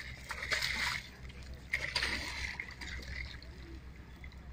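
Hooked fish splashing at the water's surface against a boat's hull, in two bursts, about half a second in and about two seconds in.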